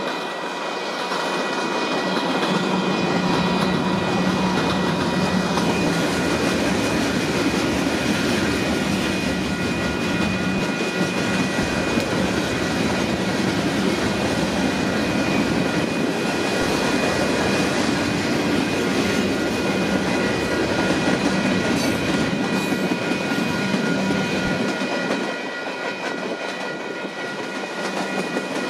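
Union Pacific freight cars rolling past on jointed rail: a steady rumble and clickety-clack of wheels on rails, with a few thin, steady high tones riding over it. It eases off slightly near the end.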